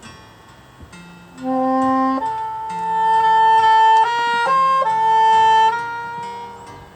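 Saxophone playing a slow melody of long, smoothly held notes that enters about a second and a half in, over a soft accompaniment of low notes.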